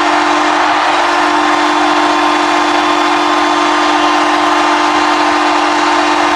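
Toronto Maple Leafs arena goal horn held in one long, steady, low-pitched blast, loud and unbroken, over a dense even rushing noise.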